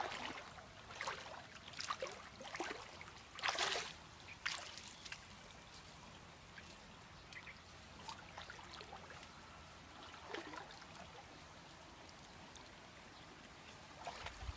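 Shallow muddy water splashing and sloshing in short bursts as a person moves through it, strongest about three and a half seconds in. After that it turns quiet, with a few faint rustles of bare feet on straw-covered sand.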